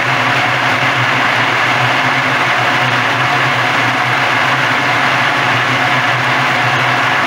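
Walnut husk peeling machine running steadily: a low, even motor hum under a dense, constant rushing noise.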